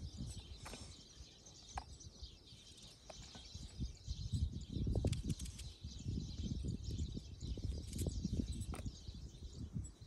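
Quiet countryside ambience with birds chirping faintly, and soft irregular low rustling that grows louder from about halfway in.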